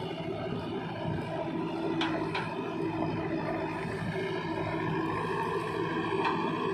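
Diesel engines of a JCB 3DX backhoe loader and a Mahindra Yuvo 475 DI tractor running steadily at idle, with a few faint clicks.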